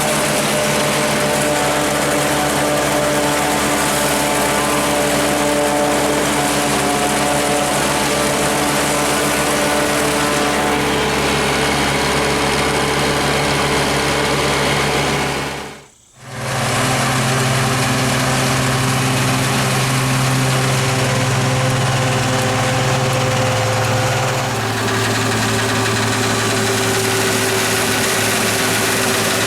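Tractor engine running steadily while silage harvesting equipment works. The sound dips out briefly about halfway through, then the engine comes back at a different pitch, which drops slightly again near the end.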